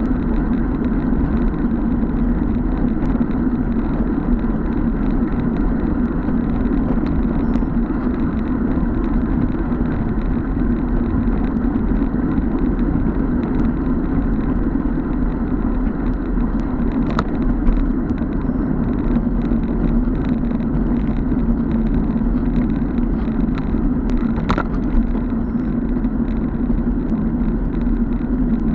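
Steady wind rush over a bicycle-mounted action camera's microphone with tyre and road rumble from riding at speed, broken twice by a brief sharp click.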